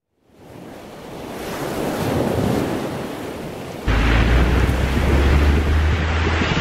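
Wind buffeting a microphone held out of a moving car's open window, with the hiss of tyres on a wet road. A rising hiss comes first, then a heavy low rumble cuts in suddenly about four seconds in.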